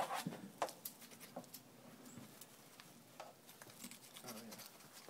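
Quiet handling noises of a knife and hands taking meat off a hanging deer carcass: scattered soft clicks and scrapes, with the sharpest clicks at the start and just over half a second in.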